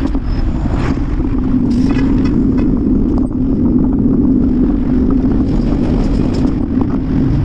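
Steady wind and road noise from riding a bicycle, with wind buffeting the microphone.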